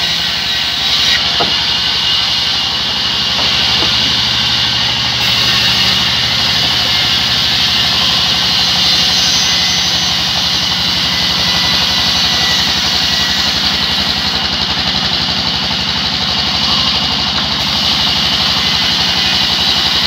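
Large sawmill band saw running steadily as a log is pushed through it: a constant high hiss over a low machine hum.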